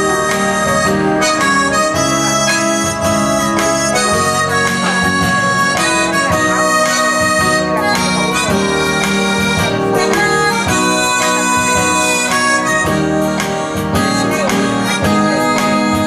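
Harmonica played into a microphone, a melody of long held notes, over a backing track with a steady beat.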